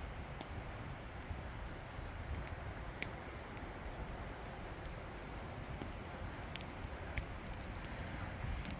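Wood campfire crackling: scattered sharp pops and snaps over a steady low rushing background.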